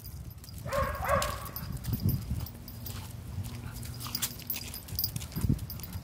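Pug giving one short, pitched bark about a second in.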